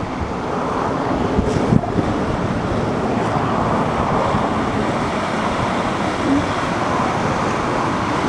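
Steady rushing noise of wind buffeting the microphone and ocean surf.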